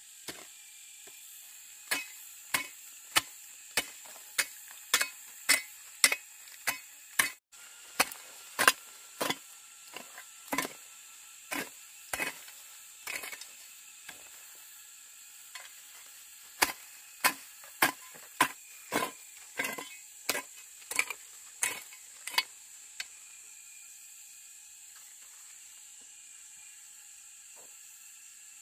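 Sharp chopping knocks of a blade striking wood, about two a second, with a short pause midway and stopping a few seconds before the end.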